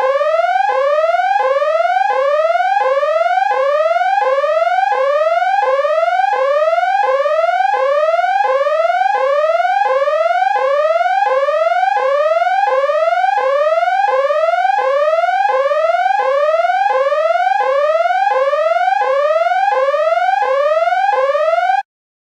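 Electronic siren whooping: a quick rising sweep in pitch that drops back and repeats about one and a half times a second at an even loudness, cutting off abruptly near the end.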